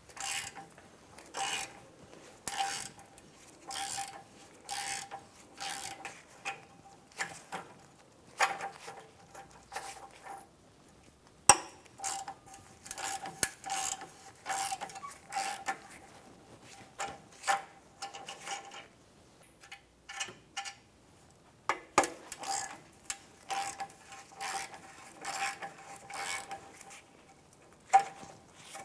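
Ratchet wrench with a 13 mm socket backing off the exhaust flange nuts on a flex pipe: short bursts of ratcheting clicks, one after another, with a brief pause about twenty seconds in.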